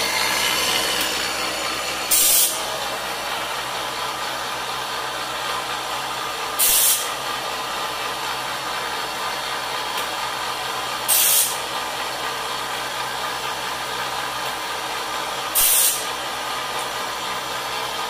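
Homemade bandsaw blade sharpener running: the electric motor of a Foley grinder hums steadily while its grinding wheel comes down on the blade's steel teeth in four short, loud grinding hisses about four and a half seconds apart, one per tooth as the wiper-motor push arm indexes the blade along.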